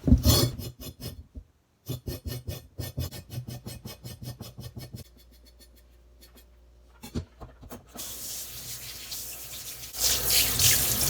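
Quick repeated scraping strokes, about five a second, as the skin is scraped off a burdock root. After a pause, a water tap runs from about eight seconds in, louder near the end.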